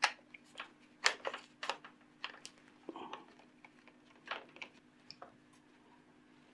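Light, irregular clicks and taps from the plastic housing of a GONGJUE GJ-8018 hot air gun being handled and opened up by hand, about a dozen sharp ticks over a few seconds.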